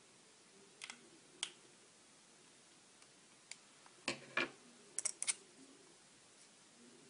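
Irregular light clicks and taps of small parts and tools being handled while an iPhone is put back together, with a louder pair about four seconds in and three quick clicks about a second later.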